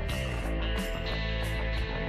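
Background music: a guitar-driven rock track with a steady drum beat and bass.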